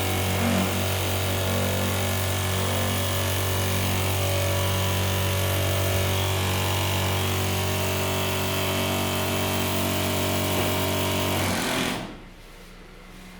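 Small electric water pump running steadily, a hum with a hiss over it, while demonstrating its water pressure; it cuts off about twelve seconds in.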